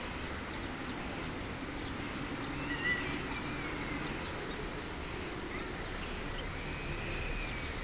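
Steady outdoor background noise with birds calling: a drawn-out call that rises and falls about three seconds in, and two more overlapping calls near the end.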